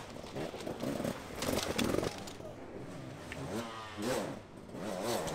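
Enduro motorcycle engine revving in short blips, its pitch rising and falling several times, with a louder rough stretch about one and a half seconds in.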